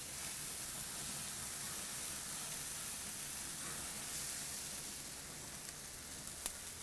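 Glazed chicken pieces sizzling on a gas grill: a steady hiss of fat and sugary glaze dripping onto the hot grates and flaring. One short click near the end.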